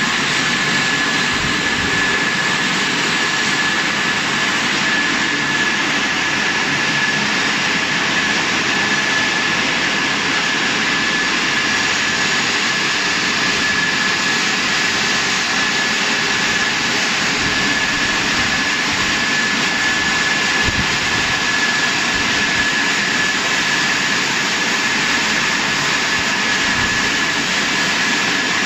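Golden Boat T12 touchless car wash machine running over a car: a loud, steady rushing noise with a thin, steady high whine running through it.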